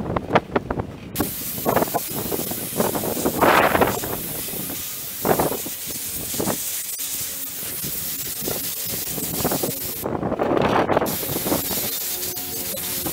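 Sandblaster gun spraying abrasive in a steady hiss onto a 1966 Mustang dash insert speaker cover. The blast starts about a second in, cuts off briefly near the end and starts again. Gusts of wind buffet the microphone throughout.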